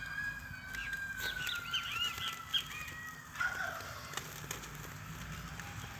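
A rooster crowing: one long, drawn-out call that sinks slightly in pitch and ends about three seconds in, with quick, repeated chirps from small birds over its middle.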